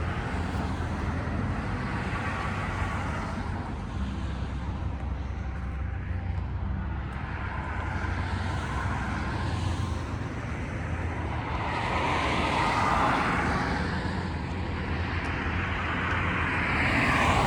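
Road vehicle noise: a steady low engine hum with tyre and road rush, swelling louder twice in the second half.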